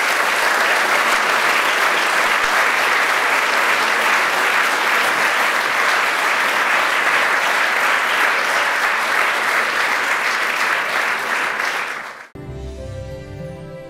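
Large seated audience applauding steadily. The applause cuts off suddenly near the end, and music starts.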